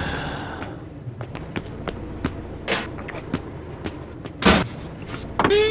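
Light footstep taps, then a pickup truck's door slammed shut with one loud thud, followed near the end by a short wavering creak as the loose bonnet springs up.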